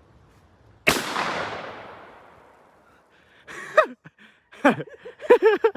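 A single gunshot about a second in, its echo trailing off over about two seconds.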